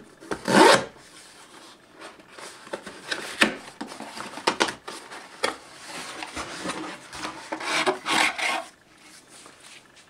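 A parcel being opened by hand: packaging scraped, rubbed and torn in irregular strokes, with louder bouts about half a second in and around eight seconds.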